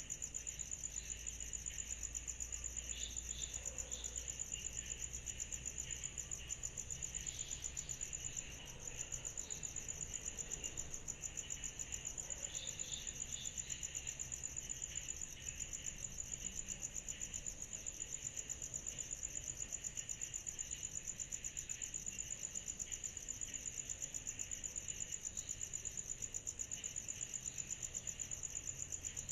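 Summer night insect chorus: a steady, rapidly pulsing high-pitched trill, with fainter chirping lower down and a few short chirps now and then.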